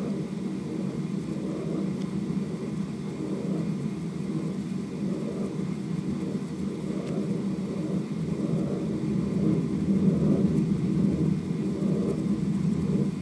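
16mm film projector playing back hand-painted film: a steady low rumble with a slight uneven swell.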